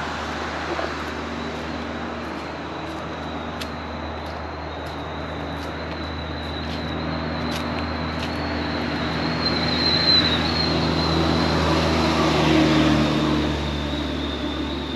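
Road traffic on the highway: a motor vehicle's engine drawing near and passing, loudest about two-thirds of the way through, over a steady rushing background.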